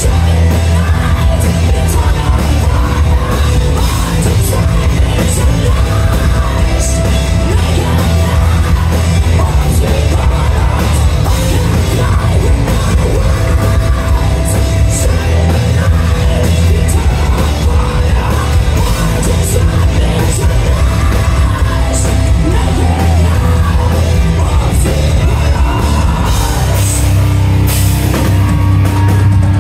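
Heavy metal band playing live at full volume, with drums and a female vocalist singing over the band, recorded on a phone from within the crowd.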